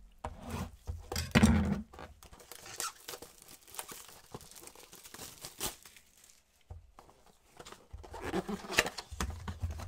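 A cardboard blaster box of trading cards being handled and torn open by gloved hands: irregular tearing and crinkling of cardboard and wrapper, loudest in the first couple of seconds and again near the end.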